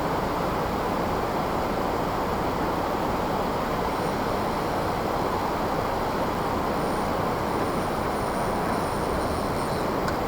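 Steady, even rush of river water pouring over a dam.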